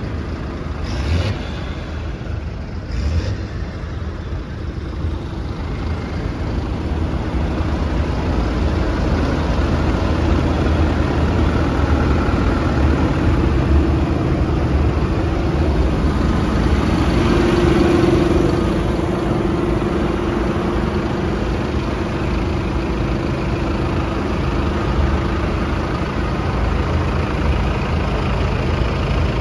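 Tractor engines idling together, a continuous low rumble with a steady hum that grows louder through the first half and is loudest about two-thirds of the way in.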